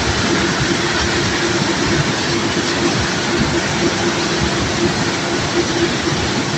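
Continuous clattering and rumbling of cobblestones being unloaded from a barge, a dense steady rattle of stone on metal, under a steady machine hum.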